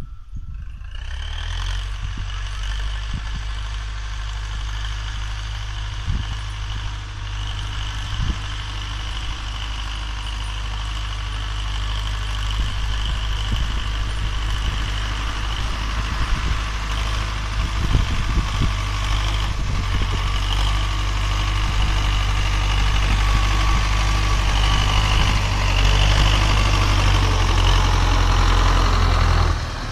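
Tractor engine running steadily as it pulls a plough through the field. It grows louder as the tractor approaches and is loudest as it passes close by near the end.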